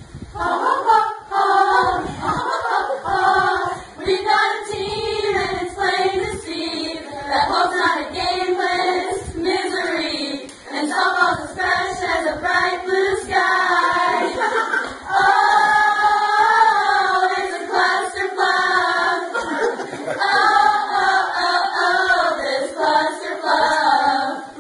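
A small group of young women singing a song together.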